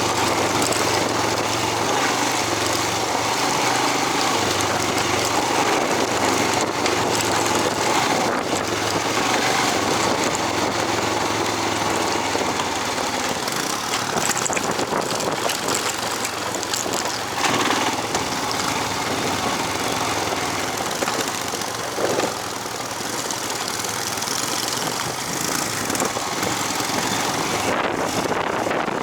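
A small engine running steadily while riding, with wind noise buffeting the microphone.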